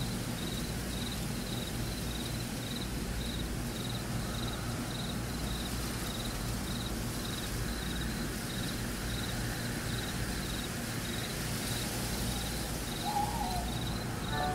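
Audio feedback from the FocusBand EEG headband app: a steady low background hiss with a high chirp repeating about three times a second. Short musical notes come back near the end.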